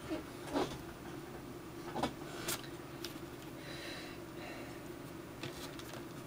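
A few light knocks and clacks, about five in the first three seconds, as tools and cut leather pieces are handled on a cutting mat, over a steady low hum.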